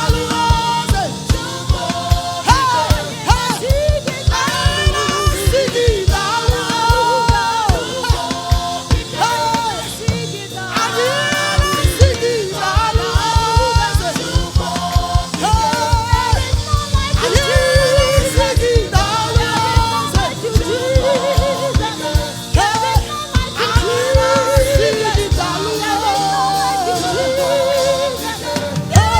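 Live gospel choir singing with a band: vocal lines over a steady drum beat and bass.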